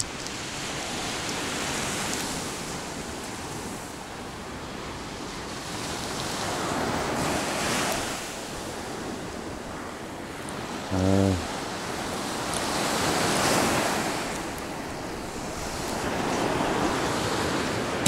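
Sea waves washing onto the shore, the surf noise swelling and fading every few seconds, with wind on the microphone. A short voiced grunt or hum is heard about eleven seconds in.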